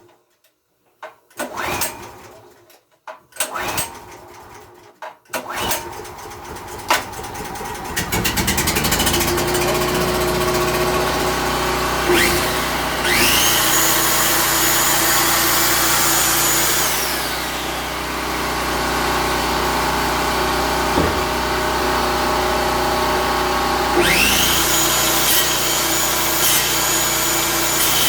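Portable gasoline generator engine being cranked on full choke, catching about five seconds in and settling into a steady run. A 12-amp corded circular saw powered by it spins up with a rising whine about thirteen seconds in, runs for a few seconds, winds down, and spins up again near the end, the engine carrying the load without stalling.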